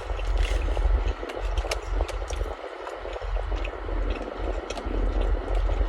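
Chewing a crunchy fried Korean corn dog close to the microphone: scattered crisp crunches and clicks over a steady low rumble.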